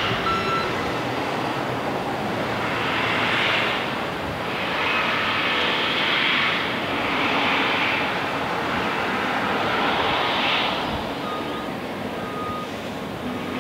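Steady outdoor noise of distant heavy machinery and vehicles at a construction site, with a hiss that swells and fades several times.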